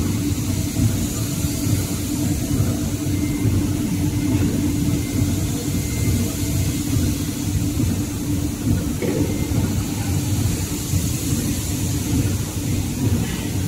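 Facial tissue production line machinery running steadily, a constant mechanical hum with a steady tone over a low rumble.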